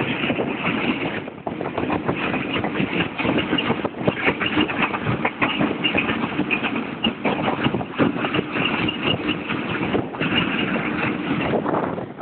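Matarmaja passenger train running along the track, heard from an open carriage door: a steady rumble of wheels on the rails with dense rattling and clatter.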